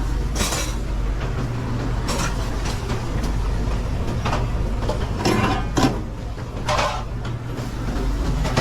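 Commercial kitchen background: a steady low hum of ventilation and equipment, with several short clatters of pans and utensils on the line.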